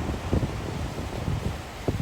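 Sea waves washing against the shore, with wind buffeting the microphone in irregular low gusts.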